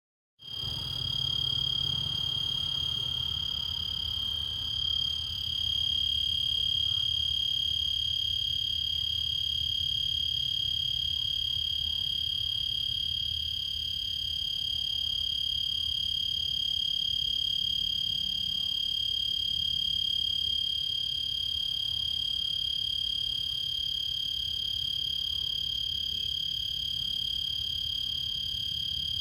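Cricket singing: a continuous, steady high-pitched song that holds without a break, over a faint low rumble.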